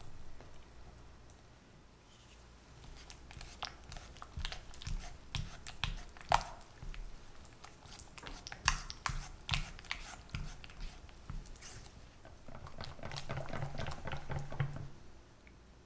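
Silicone spatula stirring strawberry purée into a thick cream in a glass bowl: wet squelching with irregular clicks and taps against the glass. Near the end, a wire whisk stirs a thin batter in a glass bowl with a quick, steady rattle.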